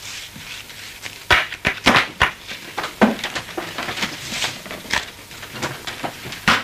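A run of sharp knocks and clatters, the loudest between about one and three seconds in, with a brief rustle of movement near the middle.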